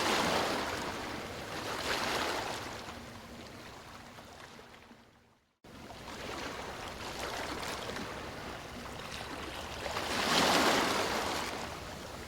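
Ocean waves breaking and washing up on a beach, swelling and ebbing in surges. The sound fades out to silence about five seconds in, then cuts back in abruptly, an edit in the recording.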